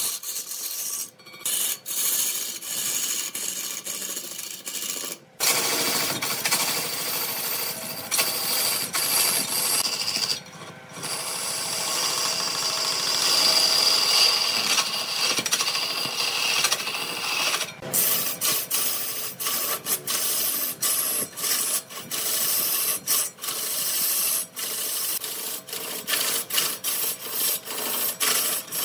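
Turning tool cutting a large redwood piece spinning on a wood lathe: a dense scraping hiss of wood being shaved, broken by many short gaps and abrupt changes.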